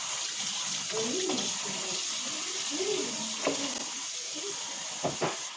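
Kitchen tap running steadily into a sink during dishwashing, with a couple of short knocks near the end.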